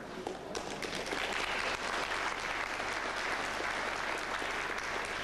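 Audience applauding, the clapping starting about half a second in and quickly building to a steady level.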